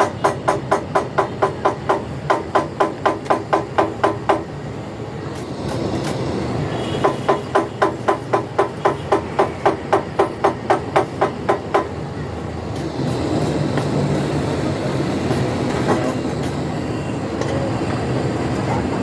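Rapid, even hammer blows on metal, about four a second with a ringing note, in two runs separated by a pause of a few seconds, over a steady background hum of traffic or machinery.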